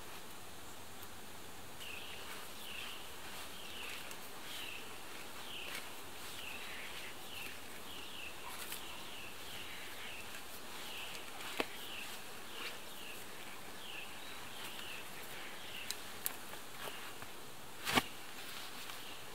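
Outdoor ambience with a run of short, high chirps, about two a second, that stops shortly before the end. A few sharp knocks cut through, the loudest one near the end.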